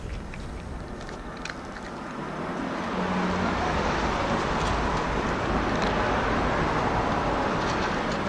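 A motor vehicle running nearby, its steady engine and road noise building from about two seconds in and holding. Before it builds, there are faint crunches of a cat chewing dry kibble.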